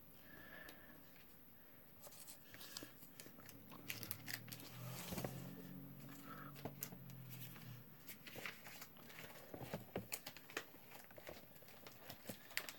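Quiet handling of trading cards and plastic card sleeves: soft rustling and scattered light clicks and taps as a card is set upright in a display row.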